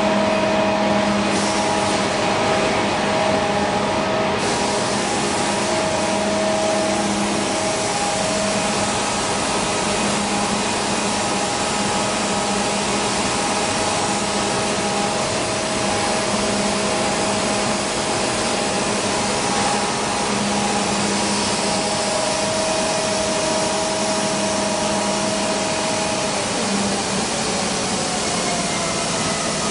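HOMAG CNC router running: a steady mechanical rush with whine tones that come and go, and a pitch that falls near the end.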